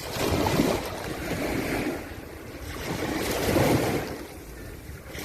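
Sea waves washing in at the shore, swelling twice, with wind rumbling on the microphone.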